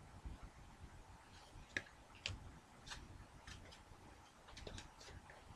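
Trading cards being handled and flipped through, giving faint, irregular clicks and light ticks, the two sharpest about two seconds in.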